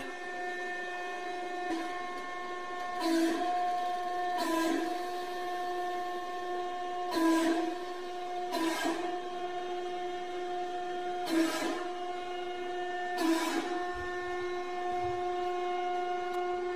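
Hydraulic press running with a steady whine as its ram crushes a shoe under rising load. About six sharp cracks, one to three seconds apart, come from the shoe giving way.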